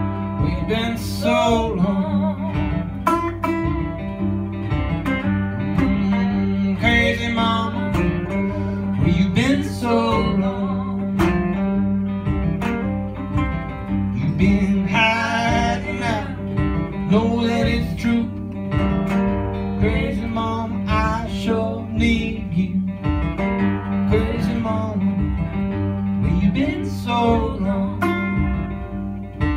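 A live band's steady blues groove: a resonator guitar and a second guitar played together.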